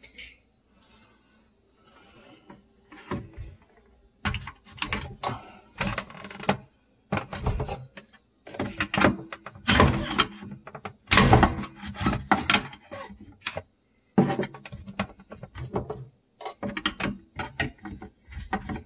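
Hammer striking a screwdriver held in a garbage disposal's dishwasher inlet to knock out the plastic knockout plug: irregular runs of quick, sharp knocks, starting about three seconds in.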